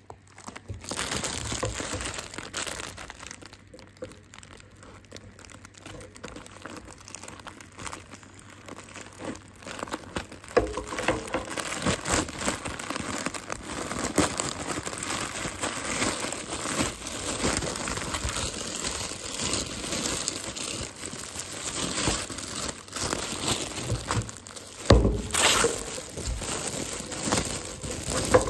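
A grey plastic courier mailer and the clear plastic sleeve inside it crinkling and tearing as they are opened by hand. The crackling gets busier about ten seconds in, with one louder crackle near the end.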